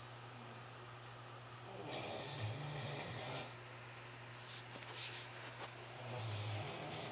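A man snoring in his sleep: two rasping snores, about two seconds in and again near the end.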